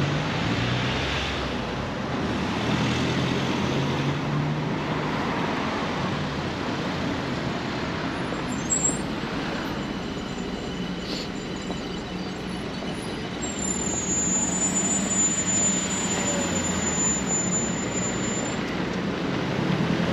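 Steady road traffic with cars and vans driving past close by. An engine's hum is loudest in the first few seconds as a vehicle goes by.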